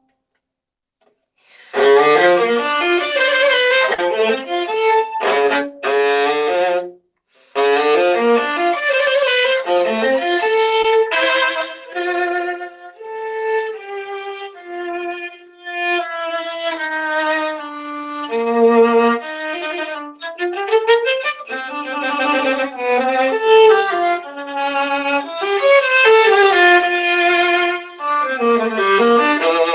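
Solo viola, bowed, playing a melodic line in phrases; it comes in about two seconds in, with a short break a few seconds later. The microphone gives it a crunchy, distorted edge.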